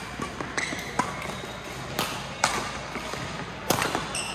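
Badminton rally: several sharp racket strikes on a shuttlecock, irregularly spaced, ringing slightly in a large sports hall.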